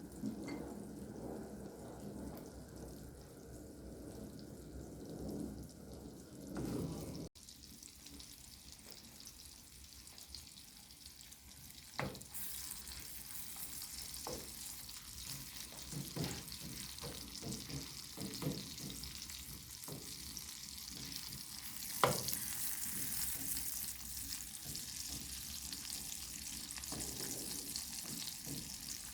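Food frying in a pan, with a steady sizzle that grows brighter and louder about halfway through. Several sharp clacks of a utensil against the pan punctuate it. A duller rustling before it cuts off abruptly about seven seconds in.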